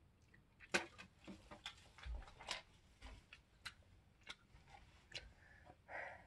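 Faint, scattered clicks and taps, about ten of them, with a short breathy vocal sound near the end.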